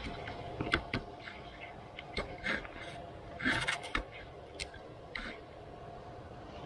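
Scattered clicks and scrapes of hands and tools working at the radiator hose and plastic fittings under a car, over a faint steady hum.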